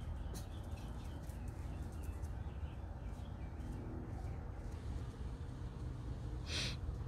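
Outdoor ambience: faint bird chirps over a steady low rumble, with a short hiss about six and a half seconds in.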